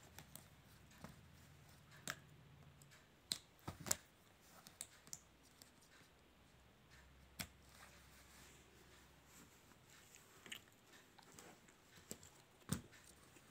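Faint, scattered clicks of plastic Faber-Castell connector pens being snapped together end to end and set down, at irregular intervals, with the sharpest clicks about four seconds in and near the end.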